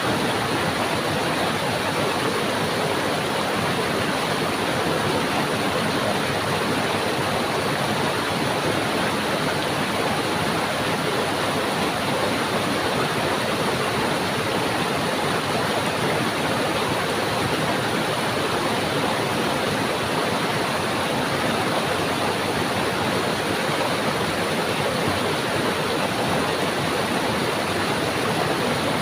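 A stream of water flowing, a steady even rush with no changes.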